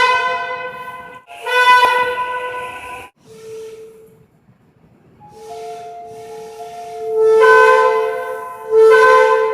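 Seoul Subway Line 6 train's music horn sounding several short melodic phrases, each a few pitched notes stepping up and down, with a brief pause about halfway.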